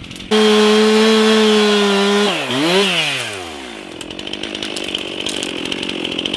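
Chainsaw revved to full throttle. It holds a steady high pitch for about two seconds, dips and recovers, then winds down in a falling pitch to a quieter idle.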